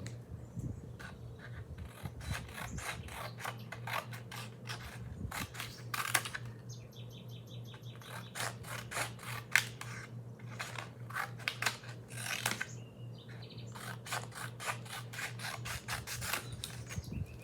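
Rapid irregular clicking and clacking of small metal snap-button jewelry pieces being handled and set down, over a steady low hum, with a few brief high chirps in between.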